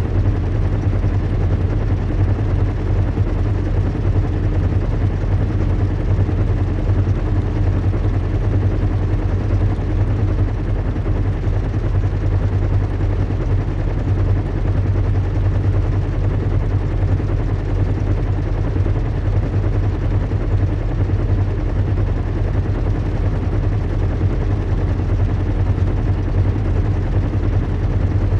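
Recreated airship-in-flight ambience: a steady, deep engine rumble with a constant low hum and an even hiss of rushing air over it, without change.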